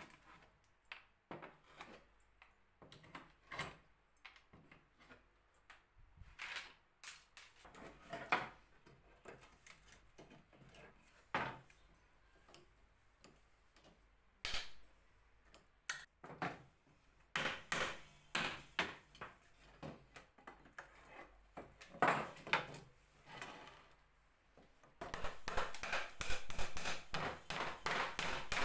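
Wooden cabinet parts being handled and worked, with irregular knocks and clatters of wood, then a denser stretch of scraping or rubbing near the end.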